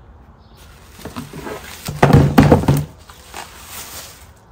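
Bubble wrap crinkling and a cardboard box being handled as a wrapped part is lifted out, with a burst of knocks and rustling loudest between about two and three seconds in.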